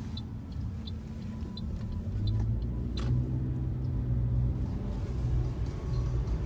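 Car cabin while driving: steady engine and road rumble, with a low hum growing stronger about two seconds in. Faint, regular light ticks come about three every two seconds during the first couple of seconds, and a single sharp click sounds about three seconds in.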